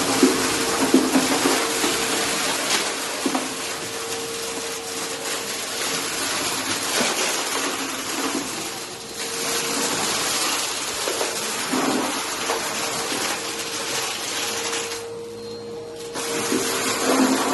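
Vacuum cleaner running on carpet: a steady motor whine under a loud airflow hiss, echoing in a hallway. The hiss dips briefly near the end.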